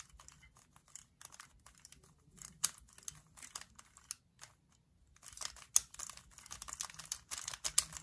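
Plastic layers of a stickerless 3x3 speed cube being turned by hand as the same four-move sequence is repeated: a patter of small clicks and clacks, sparse at first, then quicker and denser from about five seconds in.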